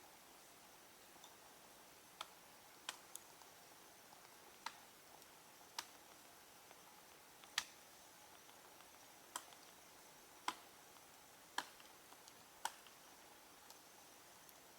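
Wood fire crackling: sharp, separate snaps at irregular intervals of about a second over a quiet background.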